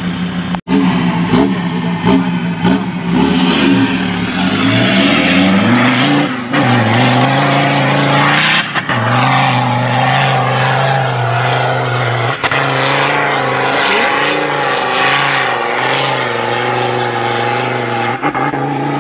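Off-road vehicle's engine under hard throttle on a sand-dune climb. It revs up over the first few seconds, then holds high revs with a few short dips.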